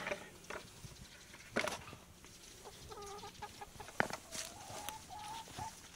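Domestic hens clucking, with a longer drawn-out call in the second half, and two sharp knocks about a second and a half and four seconds in.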